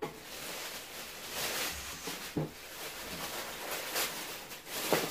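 Tissue paper rustling and crinkling as hands rummage through a cardboard box of packed clothes, with several louder crackles.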